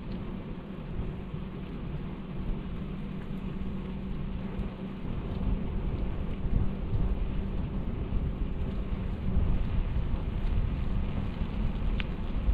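Wind buffeting the microphone while riding, a low rumbling rush that swells and eases, with a couple of faint clicks near the end.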